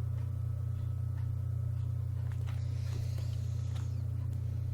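A steady low hum, with the soft rustle and light clicks of a paperback book's page being turned about two and a half to four seconds in.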